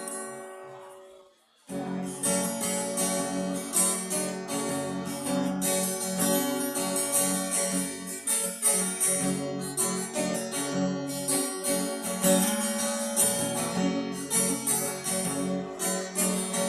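Acoustic guitar playing a song's instrumental intro. A chord rings and fades over the first second and a half, then after a brief gap the guitar comes in with a steady rhythmic pattern.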